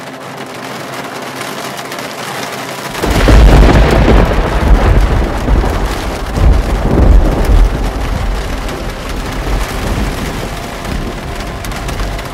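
A loud rumble of thunder breaks in suddenly about three seconds in, rolls on in several surges and slowly fades, over the steady hiss of heavy rain.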